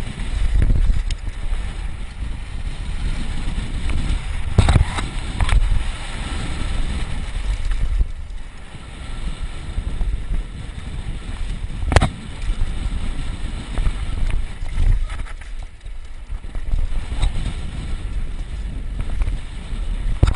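Wind buffeting a helmet-mounted action camera on a fast downhill mountain-bike run, with tyres rumbling over a dirt trail. A few sharp knocks from the bike hitting bumps, the strongest about twelve seconds in.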